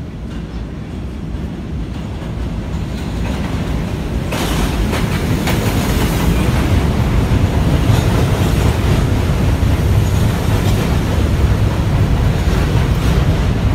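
New York City Subway N train pulling into an elevated station: the rumble of its wheels on the rails grows steadily louder as it approaches, jumps sharply about four seconds in as the cars reach the platform, and stays loud as they run alongside.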